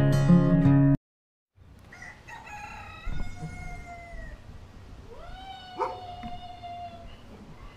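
Strummed guitar music cut off abruptly about a second in. After a brief silence comes a rooster crowing, a first call falling away and then a long crow that rises and is held.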